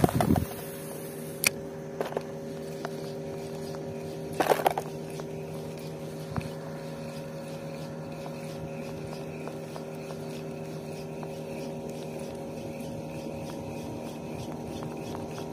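A steady mechanical drone made of several even tones, like a motor running at constant speed, with a few short knocks near the start and once about four and a half seconds in.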